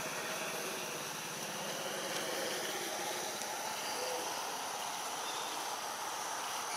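Steady outdoor forest ambience: an even hiss with faint, steady high-pitched tones running through it, and no distinct calls or events.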